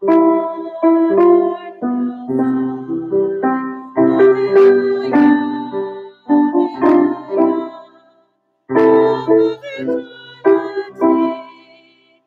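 Piano playing slow chords in phrases, each note struck and dying away, with a short pause between phrases about two-thirds of the way through.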